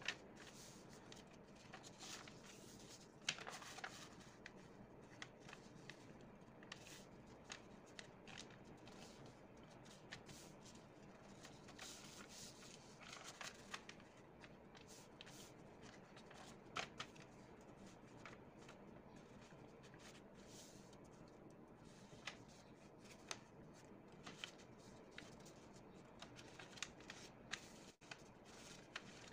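Faint rustling and crinkling of a sheet of origami paper as it is folded and creased by hand: irregular soft swishes and crisp crackles, with a sharper snap about three seconds in.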